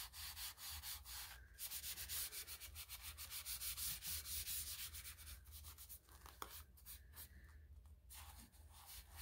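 An abrasive scouring pad with Bar Keepers Friend scrubbing the glossy epoxy coat of a tumbler in quick back-and-forth strokes, sanding it down to a matte finish. The strokes grow lighter and sparser in the last few seconds.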